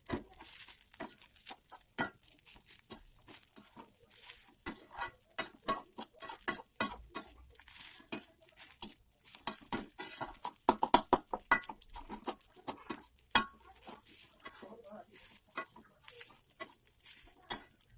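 Spatula stirring and scraping food in a frying pan: a run of quick, irregular taps and scrapes, busiest about two thirds of the way through.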